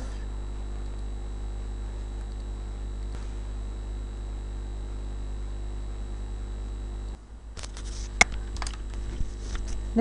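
Steady low electrical hum of the recording setup. About seven seconds in the hum drops away and a handful of sharp computer-mouse clicks follow.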